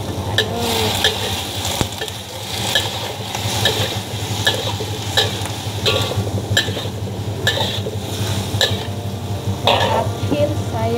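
Green vegetables stir-frying in a wok: a metal ladle scrapes and knocks against the pan about once a second over a steady sizzle and a low hum.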